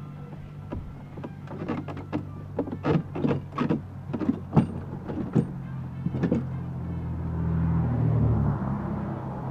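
Knocks, clicks and clatter of amplifier-rack panels and hardware being handled and pulled loose, followed near the end by a short motor whirr that swells and fades.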